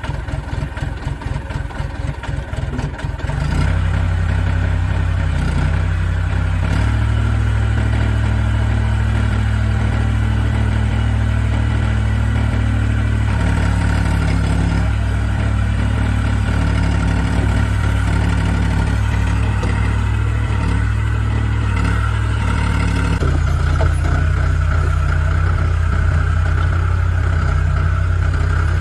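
Backhoe loader's diesel engine idling with a rapid low pulsing, then raised to a louder, steadier speed about three and a half seconds in, its note stepping up and down a few times after that.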